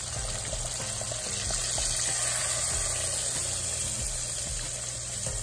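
Battered fish fillets deep-frying in hot oil in a fryer basket, a steady sizzle.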